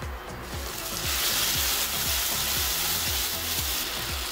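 Tomato-onion masala sizzling in a kadai, the fizz coming up from about a second in, over background music with a steady repeating bass line.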